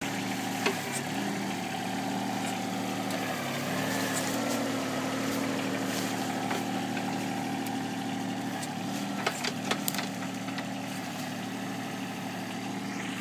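Backhoe engine running steadily, its pitch dipping briefly a few times, with a few sharp knocks about nine to ten seconds in.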